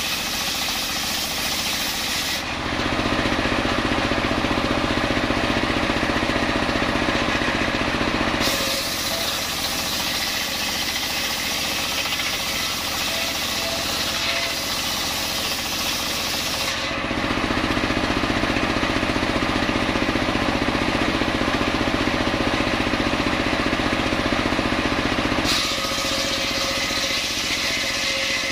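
Motor-driven homemade bench circular saw ripping a coconut-wood log lengthwise, the motor running steadily under load. The blade's high cutting hiss drops out twice for several seconds, leaving a deeper, louder steady hum, then comes back.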